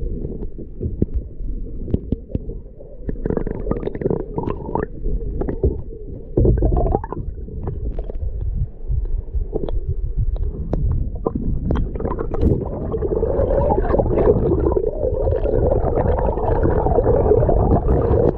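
River water heard underwater through the camera: a muffled rumbling and gurgling with many small knocks, louder over the last several seconds.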